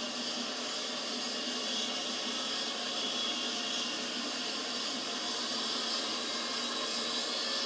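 Lockheed L-1011 TriStar's Rolls-Royce RB211 turbofans running with a steady, even jet hiss that does not rise or fall.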